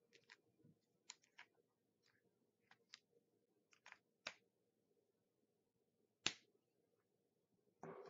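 Faint clicks and taps of cardstock strips being handled and trimmed on a paper trimmer: about a dozen short ticks, with one sharper click about six seconds in.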